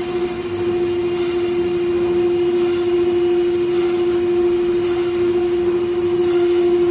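A CNC router's 9 kW air-cooled ATC spindle running at speed with a steady, even whine. A faint swish recurs a little more than once a second over it.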